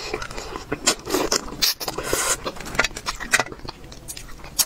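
Close-miked mouth sounds of eating spicy braised fish: wet smacks and clicks of lips and chewing, with a longer slurp about two seconds in.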